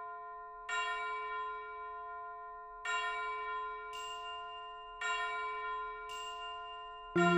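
Background music: slow bell-like chime chords, struck about every two seconds and each left ringing. A fuller, busier tune comes in at the very end.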